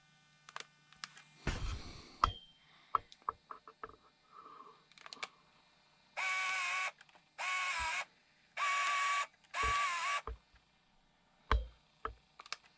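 Scattered clicks and knocks of handling, then four long electronic beeps about a second apart, each sagging slightly in pitch at its end.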